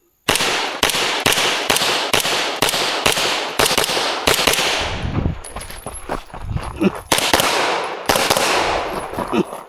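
Rapid gunshots from a pistol-calibre firearm: a fast string of about a dozen shots, evenly spaced a third of a second or so apart. A short lull follows, then a few more shots in a second string.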